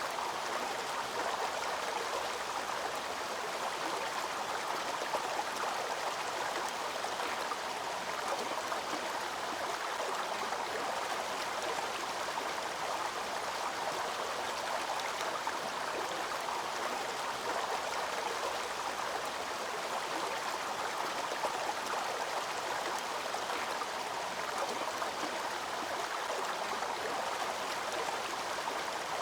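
Waterfall and its stream of falling, rushing water: a steady, even rush with no pauses.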